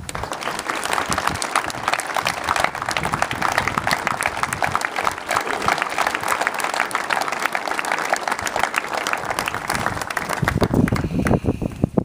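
A crowd applauding: a dense mass of hand claps that starts at once and dies away near the end, where wind rumbles over the microphone.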